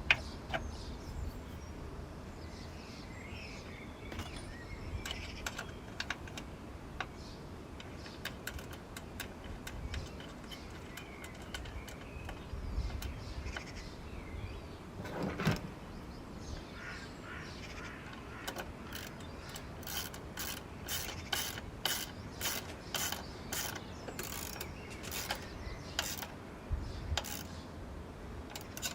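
Hand tools working on a Toyota Yaris 1KR-FE engine during refitting of the camshaft position sensor. Scattered metal clicks and knocks give way, past the middle, to a run of evenly spaced ratchet clicks at about two a second, as a bolt is wound in.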